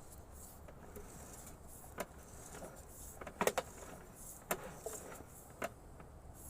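Sewer inspection camera being fed down a drain line, its push cable and head giving scattered knocks and clatters, the loudest cluster about halfway through.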